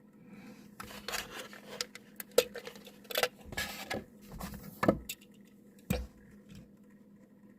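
Packaging of a 1:64 Mini GT diecast model car being handled and opened: rustling of a cardboard box and plastic packaging, with a string of sharp clicks and knocks, the loudest about two and a half seconds and five seconds in, then the handling stops.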